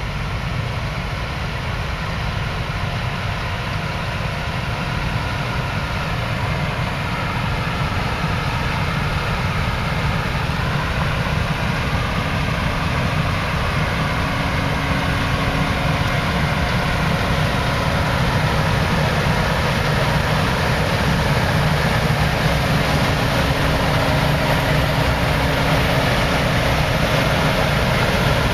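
Combine harvester running: a steady low engine drone with a faint higher whine from the machinery above it, growing gradually louder.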